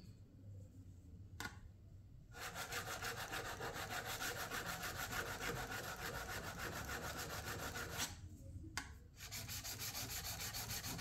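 A steel chisel blade being sharpened against a stone: a fast, evenly repeating rasping that starts about two seconds in, breaks off briefly near eight seconds and then resumes.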